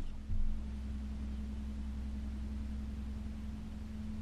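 Bass boat's electric trolling motor humming steadily, with a single low thump about half a second in.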